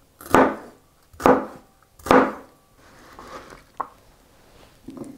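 Chef's knife chopping yellow bell pepper on a cutting board: three sharp chops about a second apart, then softer scraping sounds as the diced pieces are gathered by hand.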